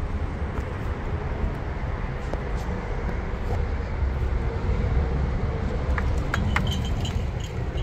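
Steady low outdoor rumble, with a few sharp metallic clicks and rattles about six seconds in as a chained, boarded-up metal shop door is pulled ajar by its pull handle.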